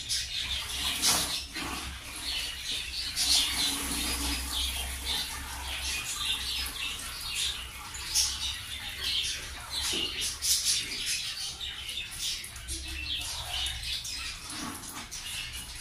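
Small birds chirping and twittering without a break, with a few sharp snaps as wet clothes are shaken out and hung on a line.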